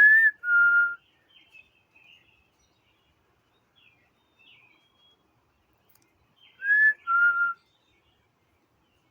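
A woman whistling a two-note call twice, about six seconds apart: a short higher note, then a slightly lower held one, in imitation of a bird's call. Faint high bird chirps come in between.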